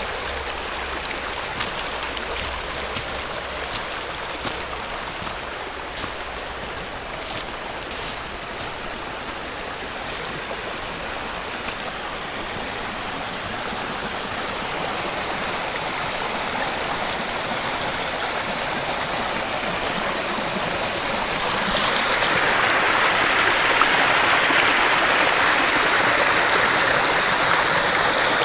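A small rocky brook rushing and splashing over stones. About 22 seconds in the sound jumps louder and hissier, becoming the rush of a small cascade pouring between rocks.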